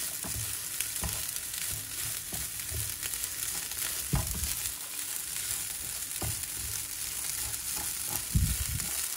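Rice with egg and grated carrot sizzling in a frying pan as it is stirred: a steady frying hiss, with a few knocks of the stirring utensil against the pan.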